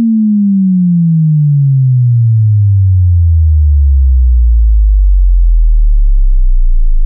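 Loud pure sine test tone sweeping steadily down in pitch, settling into a deep bass tone near the end. It is a headphone stereo-imaging test sweep, meant to sound centred in the head at every pitch when the left and right drivers are matched.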